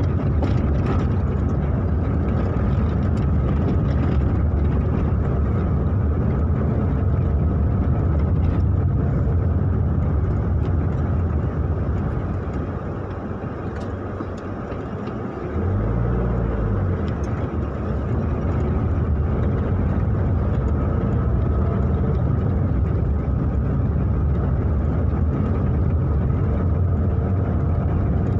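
Car driving on a dirt road, heard from inside the cabin: a steady low engine and road rumble. It eases off for a few seconds about halfway through, then comes back suddenly with a brief rise and fall in engine pitch.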